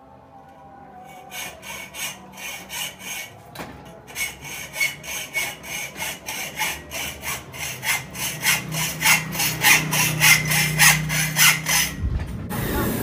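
Hand hacksaw cutting through a steel pipe held in a vise, in steady back-and-forth strokes of about three a second that grow louder, with a short pause early on. The strokes stop near the end, followed by a low thump.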